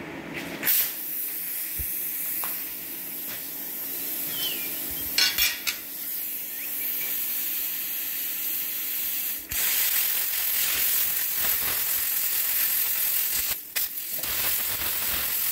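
Steady hiss of a cutting torch burning through thick steel plate. It starts about a second in and gets louder about halfway through.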